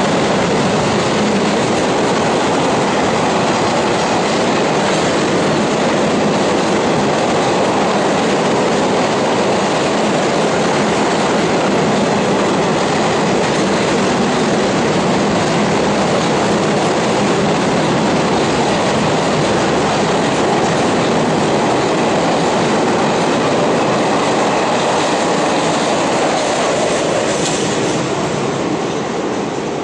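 Freight train of double-deck car-carrier wagons rolling past on the near track with a steady clatter and rumble of wheels on rail. The sound fades near the end as the last wagon clears.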